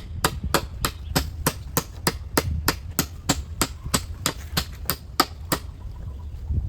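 Hammer blows in a quick, even rhythm, about three strikes a second, stopping a little over five seconds in.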